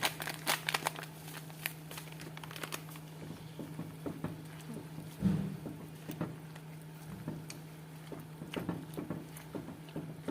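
Crinkling and clicking of kitchen handling as salt is added to a pot of cassava leaves, over a steady low hum. The clicks are dense at first and thin out, with one louder knock about five seconds in.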